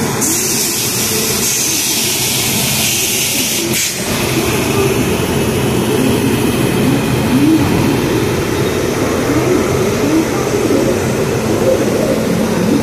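Indian Railways electric locomotive standing coupled to the coaches, its machinery running with a loud steady hiss that cuts off abruptly about four seconds in. A steady lower rumble continues after it.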